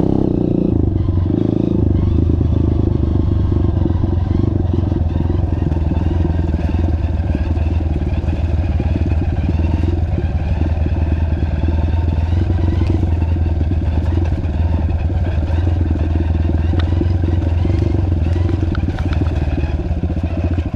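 Vehicle engine running steadily, a low even drone with no revving.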